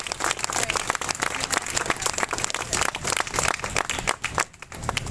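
Crowd applauding: many hands clapping densely, dying away about four seconds in.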